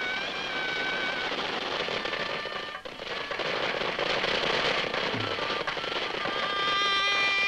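Soundtrack music with long held notes over a dense crackling noise. The noise drops out for a moment about three seconds in, and more held notes come in near the end.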